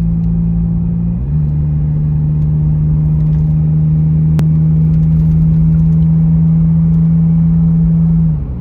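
Toyota 4Runner's V6 engine droning steadily over low tyre and road rumble, heard from inside the cabin while driving. The drone's pitch steps slightly about a second in and holds steady until it cuts off near the end.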